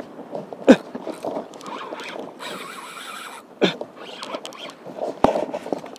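Daiwa Saltiga spinning reel and rod worked under load while a big hooked fish is fought: irregular clicking and scraping, with a hissy stretch in the middle and two sharp knocks, one about a second in and one near the end.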